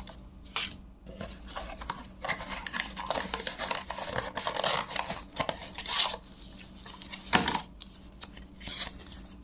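Paper and packaging rustling and rubbing as the contents of a microphone box are pulled out and handled, with scattered clicks and one sharper click about seven seconds in.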